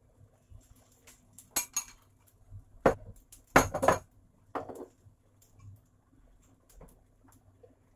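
A metal spoon clinking and knocking against a ceramic bowl and the frying pan, a handful of sharp strikes between about one and a half and five seconds in, the loudest near the middle.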